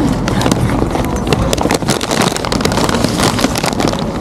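Plastic and paper takeaway bags rustling and crinkling close to the microphone, many quick crackles over a steady low rumble.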